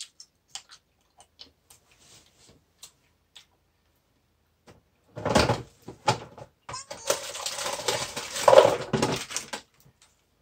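Faint crunching clicks of dry rice paper being chewed. About five seconds in, these give way to loud crinkling and rustling of a plastic snack wrapper being handled, which goes on for several seconds.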